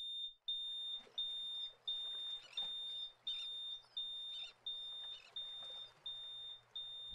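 Smoke alarm beeping: one high, steady-pitched beep repeated about one and a half times a second.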